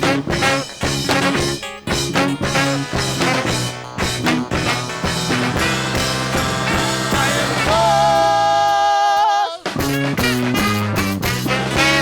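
Live rock band playing an instrumental passage with a steady beat. Past the middle a single held note wavers over a falling bass line, then cuts off suddenly before the full band comes back in.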